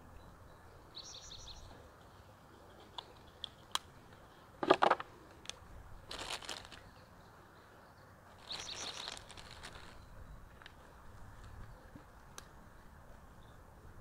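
Clicks and rustles of plastic hose fittings being handled and disconnected, with a sharp cluster of clicks about five seconds in. Birds chirp faintly in the background.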